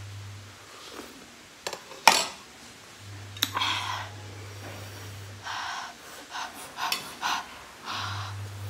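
Metal fork and spoon clinking against a ceramic plate and bowl during a meal of instant noodles, with a few sharp clicks, the loudest about two seconds in. These are followed by a run of short, hard breaths through an open mouth.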